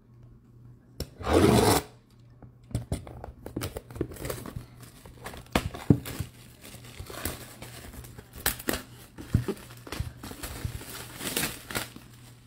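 Cellophane shrink wrap being torn and crinkled off a sealed trading card box, with one loud burst of tearing about a second and a half in, then a long run of crackling, rustling and small taps as the box is handled.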